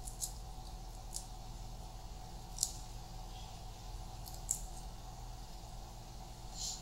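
Fresh parsley being cut with a small kitchen knife: five faint, crisp snips spaced a second or two apart, over a low steady hum.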